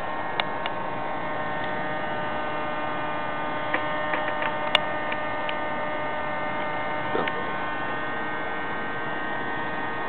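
Bubble machine's small electric fan motor running with a steady, even hum, with a few light ticks and pops scattered through the middle.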